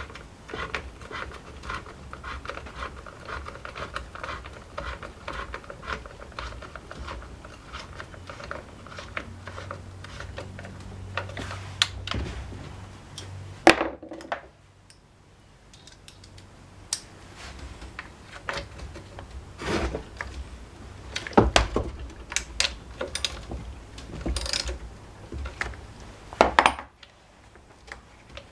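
Small metal parts and hand tools clinking and knocking during work on a small engine, with a few louder knocks spread among the lighter clicks.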